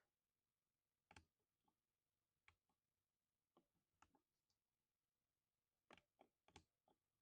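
Keys of a lubed 60% mechanical keyboard being pressed sporadically: single soft keystrokes spaced a second or so apart, then a quick run of several keystrokes near the end.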